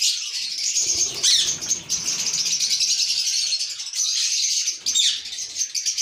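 Many Indian ringneck parakeets in an aviary chattering and calling continuously, with louder screeching calls rising over the din about a second in and again near five seconds.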